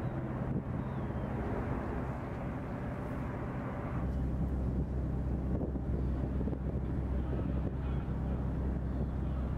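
Ship's engine running steadily as a low hum, with wind on the microphone; about four seconds in the hum becomes deeper and stronger.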